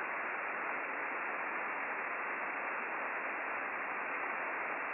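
Steady static hiss from the Icom IC-9700 receiving upper sideband on the RS-44 satellite downlink, with no station on frequency: the open passband between transmissions. The hiss is even and muffled, with no highs.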